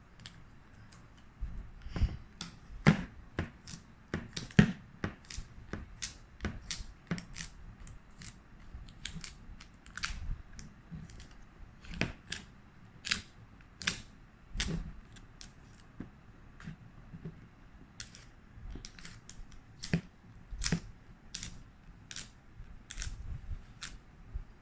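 Irregular sharp clicks and light taps, one or two a second, as a sticky dust-removal sticker is dabbed onto a phone's glass screen and pulled off again.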